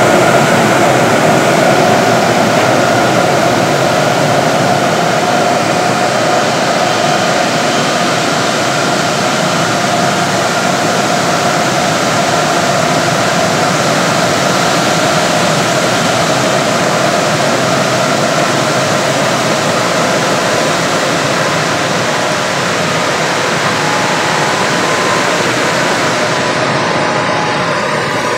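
Loud, steady rush of air from the cooling fans and air handling of the Titan supercomputer's cabinets, with a couple of steady hum tones running through it; the sound dulls a little near the end.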